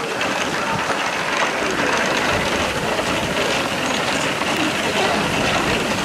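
Strong wind blowing, a steady rushing noise.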